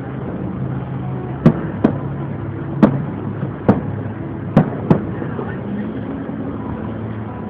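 Fireworks shells bursting: six sharp bangs at uneven intervals in the first five seconds, over a steady low hum.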